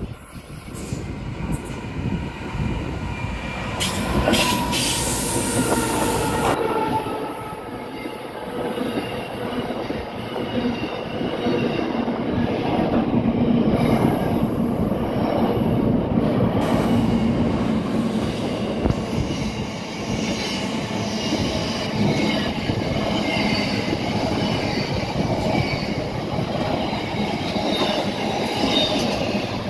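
Pacific National freight train passing close by: the sound builds over the first few seconds as it arrives, then a long string of container wagons rolls past with a steady rumble and high-pitched squeal from the wheels.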